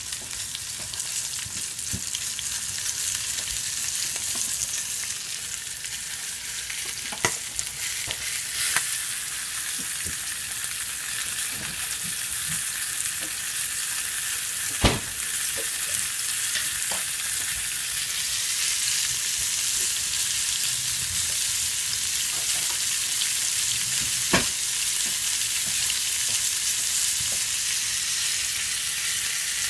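Food frying in hot pans: a steady sizzle that grows a little louder in the second half, with a few sharp clicks, the loudest about halfway through.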